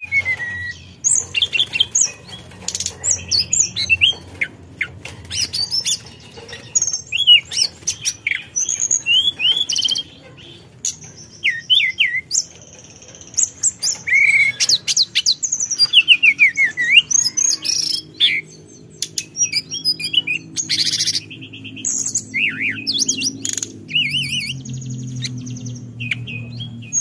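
Hill blue flycatcher singing a fast, varied song: clear whistled phrases that swoop up and down, broken by quick chatter and short pauses. A faint low hum sits underneath in the second half.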